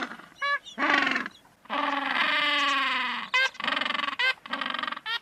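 Penguins calling: a run of short cries, one long call held for about a second and a half in the middle, then several quick calls that bend up and down in pitch near the end.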